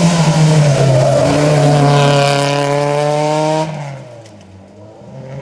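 Rally car engine running hard at close range, holding nearly steady revs, then dropping away sharply about three and a half seconds in.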